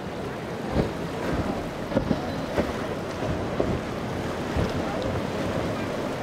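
Powerboat running fast through choppy water, the rush of its wake and spray under wind buffeting the microphone, with irregular thumps about once or twice a second.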